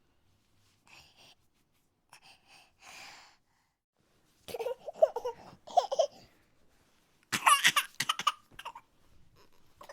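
A person crying in short sobbing bursts: faint breathy gasps in the first few seconds, then louder sobs about halfway through and the loudest near the end.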